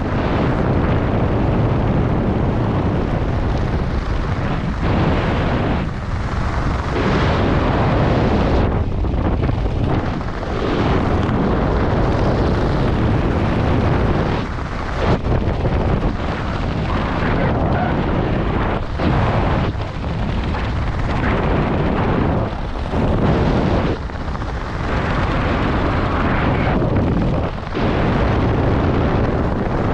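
Wind rushing over a skydiver's camera microphone during the descent, a loud steady buffeting with brief dips every few seconds.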